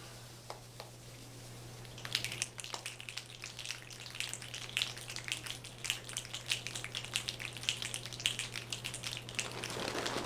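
A light, irregular patter of many hands, starting about two seconds in and thickening into a denser rush near the end.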